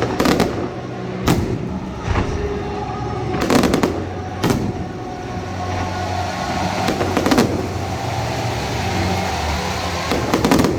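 Fireworks exploding: a series of sharp bangs, some in quick clusters, over a steady background din.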